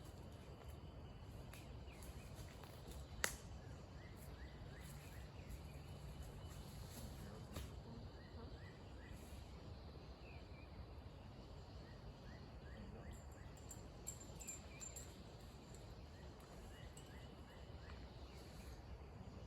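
Quiet outdoor ambience: a low steady background noise with faint short chirps from small wildlife repeating at intervals. A single sharp click about three seconds in, and a couple of fainter ticks later.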